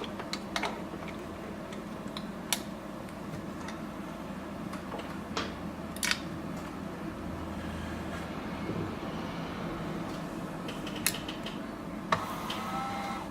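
Small metal soldering tools clicking and tapping on the workbench while a soldering iron is swapped: a handful of sharp, separate clicks spread over several seconds, with a steady background hum.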